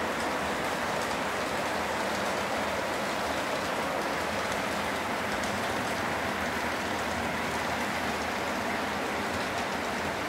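Several model trains rolling on the layout's track: a steady whirr of motors and metal wheels on rail, with faint scattered ticking.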